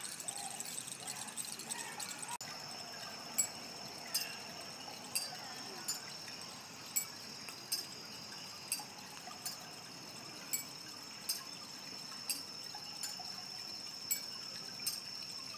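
Bamboo knocking: short, sharp, hollow clacks about once a second after the first couple of seconds, over a steady high-pitched whine.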